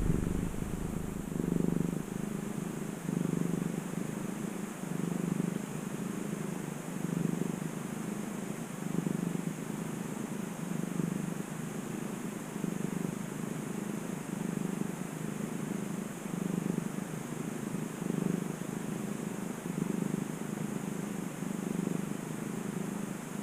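A cat purring steadily, swelling and fading with each breath about once every two seconds.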